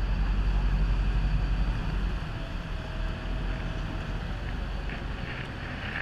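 Boat under way: low engine rumble mixed with wind buffeting the microphone, loudest in the first two seconds, then steadier and a little quieter.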